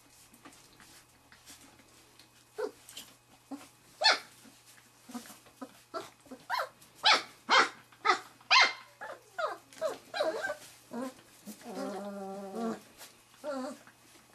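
Three-and-a-half-week-old Wirehaired Pointing Griffon puppies yipping and growling. There is a quick run of sharp, high yips in the middle and one longer, drawn-out cry near the end.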